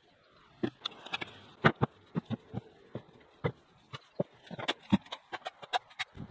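Irregular sharp knocks and clatters of old wood offcuts and garden debris being tossed into a galvanised metal rubbish bin and dug out of the undergrowth.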